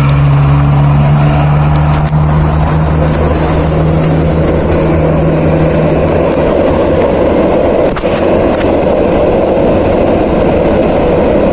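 KAI diesel locomotive approaching across a railway bridge: a steady low engine drone that gives way, about halfway through, to a rougher, louder rumble as it nears.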